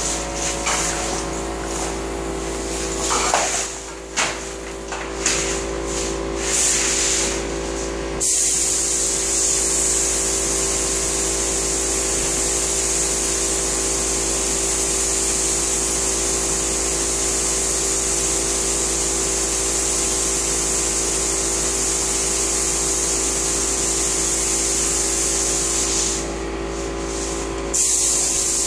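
Compressed-air spray gun spraying the final coat of finish onto kitchen cabinets: several short hisses from trigger pulls in the first eight seconds, then a long continuous hiss, briefly dropping near the end, over a steady hum.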